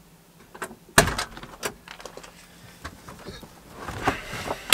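A vehicle door shutting with a single sharp thump about a second in, followed by a few light clicks and rattles. Near the end a rising noise builds as the engine is started.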